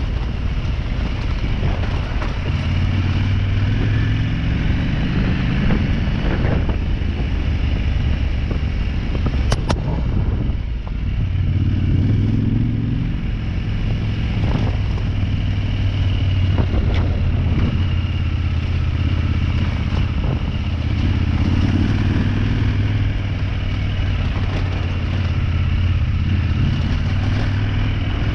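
Motorcycle engine running steadily under way on a rough dirt trail, with occasional knocks and rattles from the bike over bumps. The engine eases off for a moment about ten seconds in, then picks up again.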